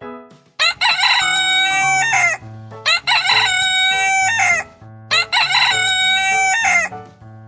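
Rooster crowing three times, each cock-a-doodle-doo lasting under two seconds, with short gaps between.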